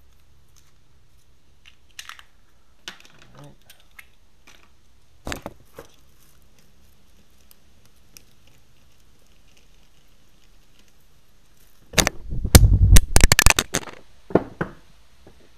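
Close handling noise of hydraulic hose fittings being worked by hand: a few scattered light clicks and taps, then about two seconds of loud, dense crackling handling noise near the end.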